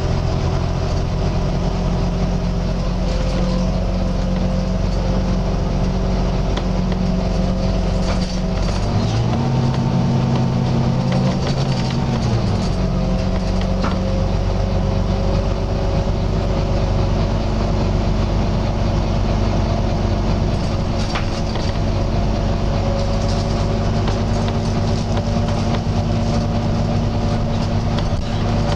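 Volvo B9TL double-decker bus's six-cylinder diesel engine running steadily under way. Its note rises about nine seconds in, holds for a few seconds, then drops back.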